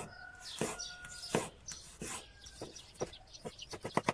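Kitchen knife chopping garlic cloves on a wooden cutting board: separate knocks of the blade on the board every half second or so, quickening into a fast run of chops near the end.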